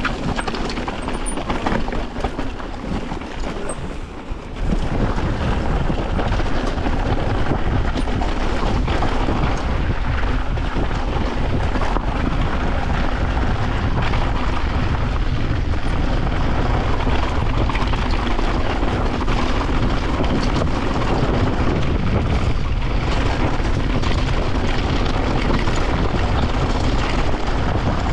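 Mountain bike descending a loose, rocky trail: a continuous rush of wind on the microphone mixed with tyres crunching over gravel and the bike rattling over rocks. It is a little quieter for the first few seconds, then steady.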